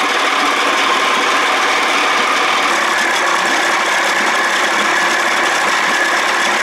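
1979 Evinrude 55 hp two-cylinder two-stroke outboard running steadily while it warms up. It is running cold: the head temperature never goes above 110 degrees.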